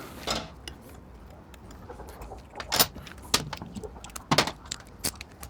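Metal bolts and hand tools clicking and clinking against the motorcycle's frame and engine guard hardware as a bolt is turned in by hand. It is an irregular handful of sharp clicks, mostly in the second half.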